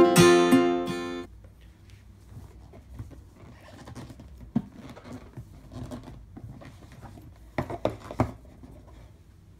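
Acoustic guitar music stops about a second in. It is followed by faint clicks and rustling handling noises, with a few sharper clicks near the end.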